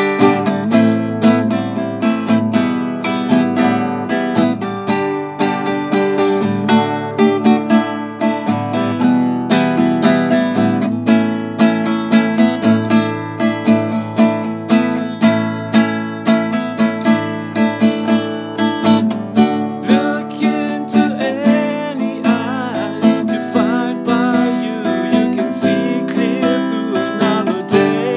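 Nylon-string classical guitar strummed in a steady, rhythmic chord pattern, an instrumental stretch of a song; a voice comes in during the last few seconds.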